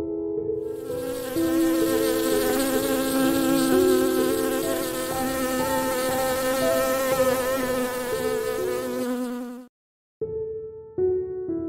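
A steady buzz over background music, starting about a second in. The buzz and the music cut off together near the end; after a brief silence the music returns alone.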